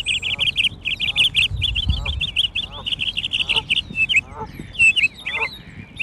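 Several birds singing: rapid high chirping and twittering throughout, with lower, repeated calls every half second or so mixed in.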